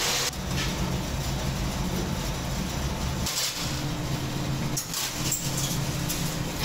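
Workshop machinery running with a steady low hum that drops out briefly about three seconds in, with a few short sharp knocks.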